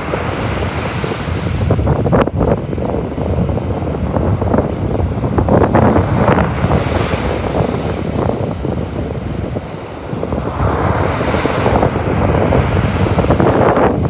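Baltic Sea surf breaking and washing up a sandy beach, the hiss of the wash swelling and fading twice, about six and eleven seconds in. Wind buffets the microphone throughout.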